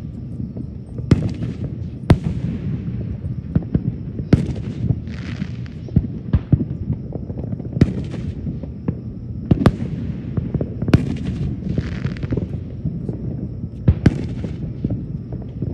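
Aerial fireworks shells launching and bursting, with a sharp bang every second or two. Between some bangs come fizzing bursts about a second long, over a steady low rumble.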